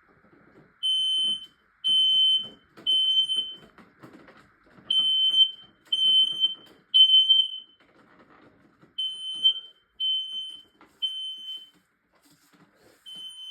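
Smoke alarm sounding its evacuation signal: a high piercing beep in groups of three half-second tones, each group followed by a pause of about a second, repeating. It was set off by aerosol test smoke.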